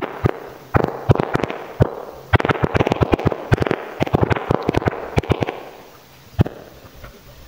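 Smartphone on-screen keyboard clicking as a phrase is typed: quick runs of key taps with short pauses between them, then a single tap near the end.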